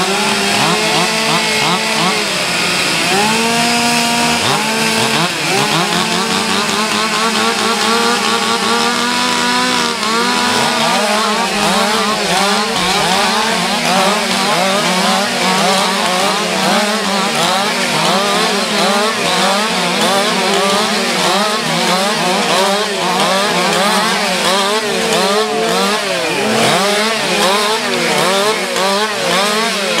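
Several two-stroke chainsaws run at once, revving up and down as the competitors cut the pegs off poles during limbing. For the first ten seconds or so the engine pitches rise and hold in steps. After that they become a dense, fast warble of revs rising and falling with each cut.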